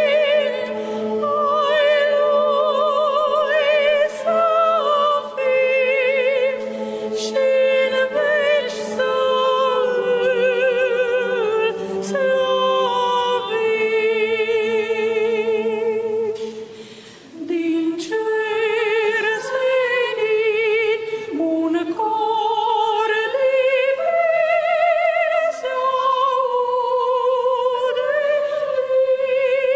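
A female soloist sings a traditional Romanian colind (Christmas carol) with strong vibrato, unaccompanied by instruments. A choir holds a low sustained note beneath her for the first half. There is a short break for breath a little past halfway.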